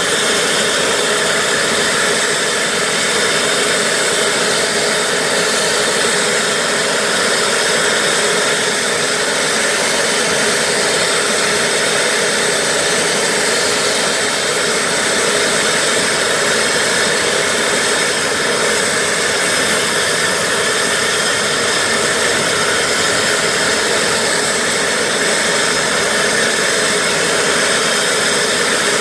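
Pratt & Whitney PW500-series turbofans of Cessna Citation business jets running steadily on the ground: a constant jet whine over a hiss, with no change in pitch or level.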